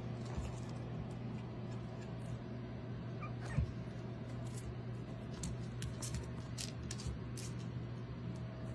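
Pomeranian puppy and its mother dog play-wrestling on a laminate floor: small puppy squeaks and scuffling, with sharp clicks of claws on the floor, thickest in the second half, and one thump about three and a half seconds in.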